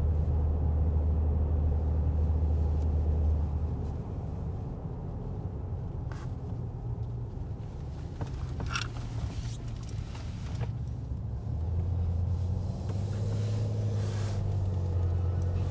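Car cabin noise while driving: a steady low engine and road drone that drops away about four seconds in and comes back strongly near the end, with a few faint clicks in the quieter stretch.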